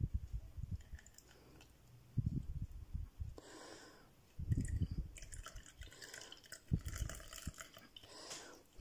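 Homemade cough syrup being strained through gauze compresses in a small kitchen strainer: liquid pouring and dripping, with irregular soft knocks from handling the pan and strainer.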